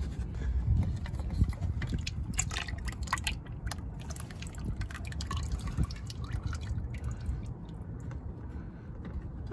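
Used engine oil dripping and trickling from a loosened oil filter into a drain pan, with scattered small clicks, most of them a couple of seconds in.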